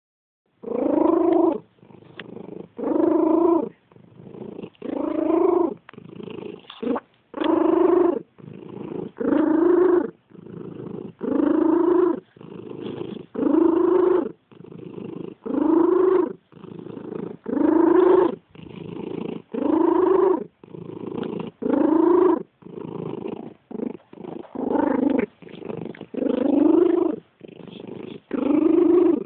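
Domestic cat purring with a loud, pitched wheeze on each breath, slightly rising in pitch, about every two seconds, with quieter purring in between.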